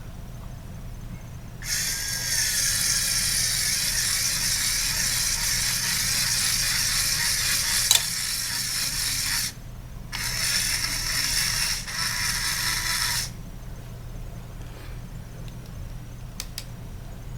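A Lego Technic Power Functions medium motor whirs as it drives the plastic gear train of a Lego 8070 Supercar's motorized doors, hood or spoiler. It runs for about eight seconds with a sharp click near the end, stops briefly, then runs again for about three seconds.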